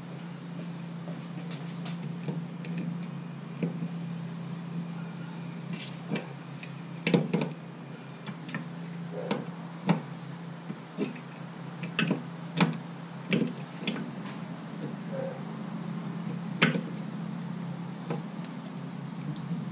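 Metal clinks and knocks of a wrench on a pressure gauge's brass fitting as the gauge is tightened into a reverse osmosis filter housing: irregular sharp strikes, most of them from about six seconds in, over a steady low hum.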